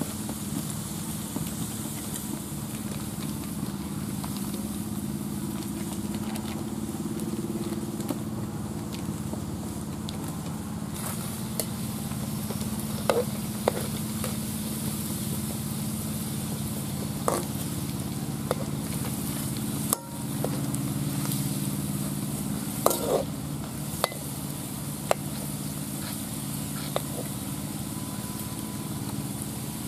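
Patties deep-frying in a metal wok, the oil sizzling, with a few short sharp clinks of a metal slotted spoon against the wok. A steady low hum runs underneath throughout.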